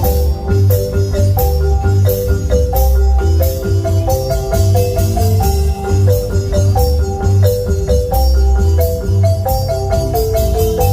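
Marimba ensemble playing a lively tune: quick melodic runs struck on the marimba's bars, over a strong bass line and a steady percussion beat.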